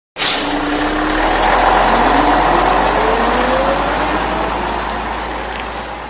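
Heavy vehicle engine sound, a bus or truck accelerating: it starts abruptly with a short hiss, its pitch rises over a few seconds as it speeds up, then the sound slowly fades.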